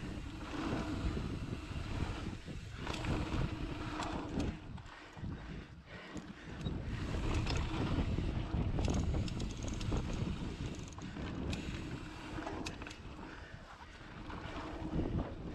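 Mountain bike running fast down a dirt singletrack: wind rushing over the camera microphone and tyres rolling on dirt, swelling and easing with speed, with scattered short clicks and rattles from the bike.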